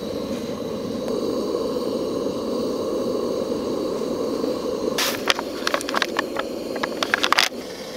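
Trangia gas burner running under a kettle of water coming to the boil: a steady rushing noise. From about five seconds in comes a run of sharp clicks and rattles, and the rushing drops just before the end.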